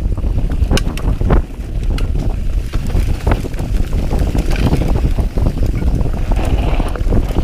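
Wind buffeting the microphone of a mountain bike descending a rough dirt trail at speed, with a steady low rumble from the tyres and frequent knocks and rattles from the bike as it goes over bumps.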